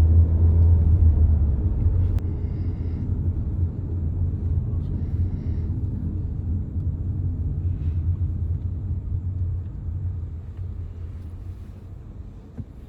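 Low road and engine rumble inside a moving car's cabin, steady at first and fading gradually over the last several seconds.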